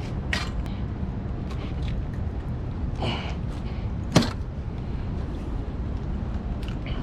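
A few scattered knocks and clanks over a steady low hum, the loudest a single sharp knock about four seconds in, as a sport motorcycle is handled onto a stand.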